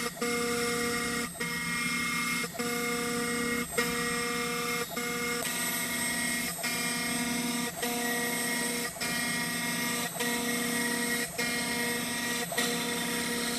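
CNC router spindle and end mill milling aluminum: a steady, high-pitched cutting whine made of several held tones. It dips briefly about once every second or so, as the cutter works its passes across the plate.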